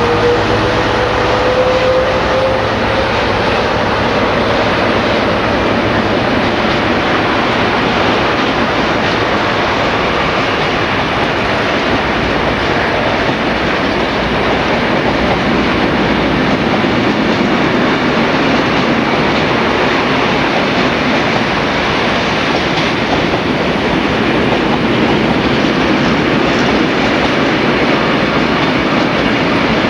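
Freight train rolling past with a steady, loud rumble and clatter of wagon wheels over the rail joints, with a brief rising tone in the first few seconds.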